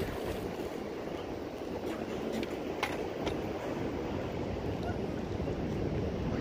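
Steady wind buffeting the microphone over the wash of ocean surf, with a few faint clicks near the middle.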